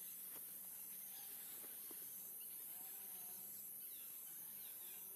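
Faint forest ambience: a steady high insect hiss, with a few faint short calls that rise and fall in pitch.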